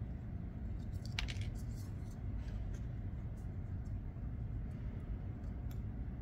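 Faint clicks of small metal folding-knife parts handled by fingers, one sharper click about a second in, over a steady low hum.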